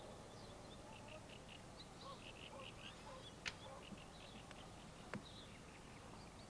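Faint birds chirping in short repeated high notes over quiet open-air background, with two sharp clicks, the first about halfway through.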